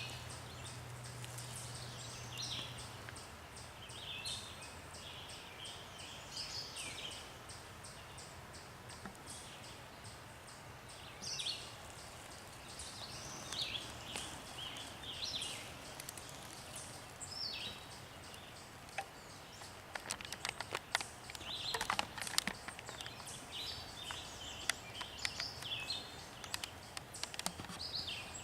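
Songbirds singing, short chirping phrases repeating every second or two over a steady faint hiss. From about two-thirds of the way in there is a spell of sharp crackling clicks.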